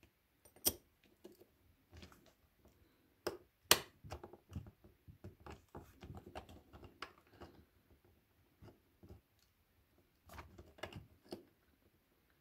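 Small steel parts of a Hema pencil sharpener's three-jaw chuck clicking and tapping as the cover is handled and pressed onto the spring-loaded carrier plate. Irregular light clicks, the sharpest about a second in and near four seconds in, with another run of clicks near the end.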